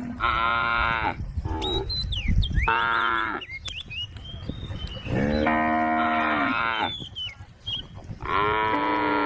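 Cattle mooing: four calls in a row, the third one the longest, the last still going at the end.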